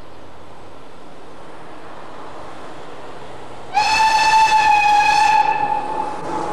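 Steam locomotive whistle blowing one long, steady note, starting a little past halfway through, over the steady noise of the approaching narrow-gauge steam train.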